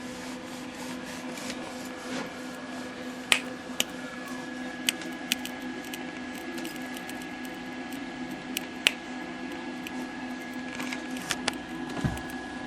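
The power switch of a vintage Packard Bell tube TV arcing, sizzling with irregular sharp crackles and pops over a steady hum; the sizzle is the sign of a faulty, arcing switch.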